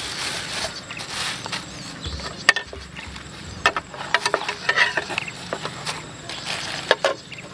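Bamboo shoot pieces frying in a pan of hot oil: a steady sizzle with sharp clicks and pops scattered through it, most of them in the middle.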